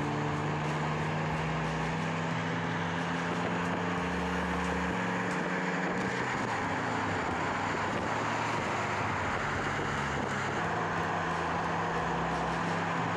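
Toyota GR Corolla's 1.6-litre turbocharged three-cylinder engine pulling at steady revs, its note rising slowly, over a steady rush of tyre and wind noise. The engine note breaks off about six seconds in and comes back steady near the end.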